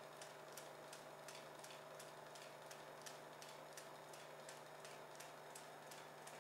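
Film projector running: a faint steady hum with a light, regular ticking, about three ticks a second.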